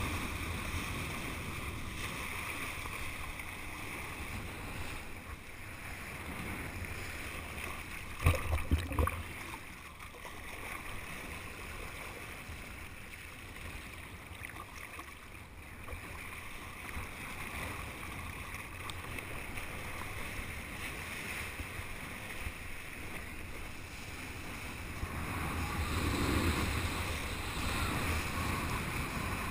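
Wind buffeting the camera microphone and water hissing under a kiteboard as it skims across the water. A short cluster of sharp knocks about eight seconds in, and the rush grows louder near the end.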